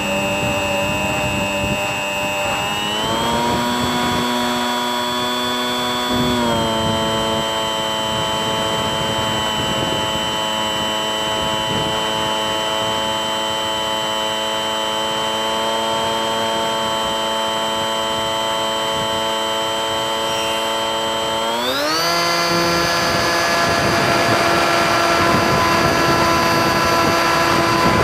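Bixler 3 RC plane's electric motor and pusher propeller whining in flight over a rush of air noise. The pitch steps up about three seconds in and settles back a few seconds later, then rises sharply near the three-quarter mark as the motor speeds up, and holds there louder.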